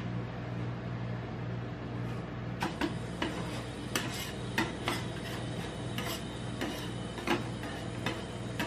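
Metal ice cream spatulas scraping and tapping on the steel cold plate of a rolled ice cream machine, rolling up ice cream and then scraping the plate. From about two and a half seconds in come repeated sharp metallic taps and clicks, over a steady low hum.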